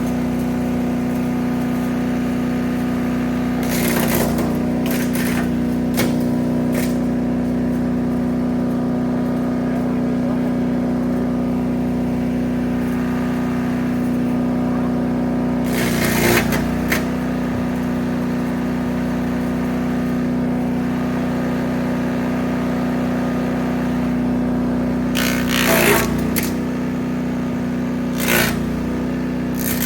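Small 3-inch wood chipper's engine running steadily at speed, broken four times by short noisy crunching bursts as brush is fed through and chipped.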